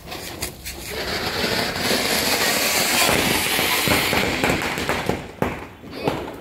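Ground firework fountain (flower pot) spraying sparks with a loud, steady hiss that builds over the first second or so and fades near the end. A few sharp pops come near the end.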